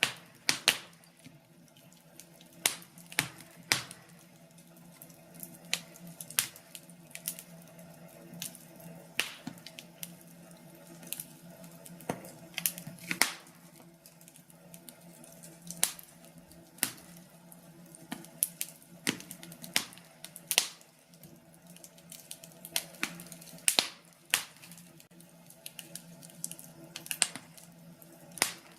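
Wood fire crackling in a fireplace: irregular sharp pops and snaps over a low steady hum.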